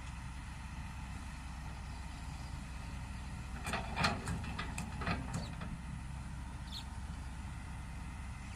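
Diesel engine of a heavy machine idling steadily, with a few sharp clanks and knocks about four to five seconds in.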